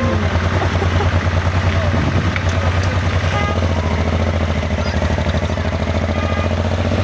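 Honda Transalp XL700V's 680 cc V-twin engine idling steadily, a deep even pulsing with no revving.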